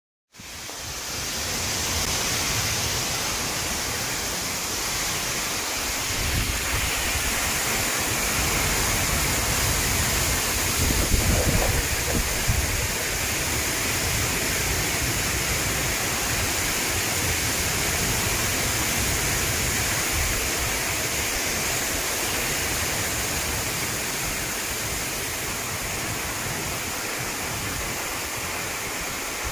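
Heavy rain pouring steadily onto trees in a summer thunderstorm, with wind moving the foliage. A brief louder low rumble swells up about eleven seconds in.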